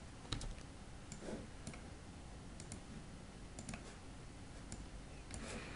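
Faint, scattered single clicks of a computer mouse and keyboard, spaced irregularly a second or so apart.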